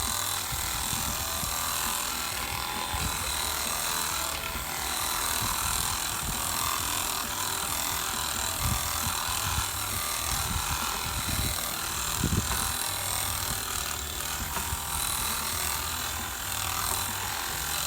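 Oster professional massager running with a steady electric buzz as it is worked over a surface, with a few soft knocks and rubs.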